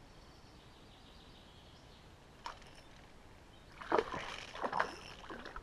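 Black bass striking a soft plastic lure at the water's surface about four seconds in: a sudden burst of splashing, with a second splash shortly after, as the fish throws the lure violently out of the water.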